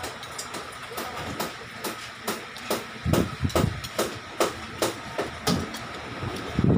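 Metal spoons and forks clinking and scraping on ceramic plates during a meal, a string of short, sharp clicks, with a few low thuds around three seconds in.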